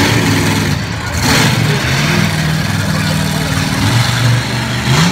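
Monster truck engine revving hard, its pitch rising and falling as the truck spins in circles, with a rising rev near the end.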